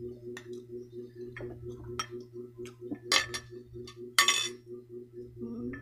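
Metal spoon clinking and scraping against a plate and glass sauce bowls: a few short, sharp clinks, the loudest and longest scrape about four seconds in, over a steady low pulsing hum.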